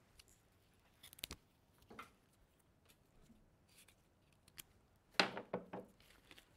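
Scissors snipping flower stems, with the stems being handled: a sharp snip a little over a second in, a softer one at about two seconds, and a quick loud run of snips and rustles about five seconds in.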